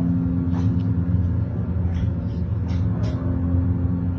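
Dark suspense background music: a steady, deep rumbling drone of held low notes, with a few faint ticks.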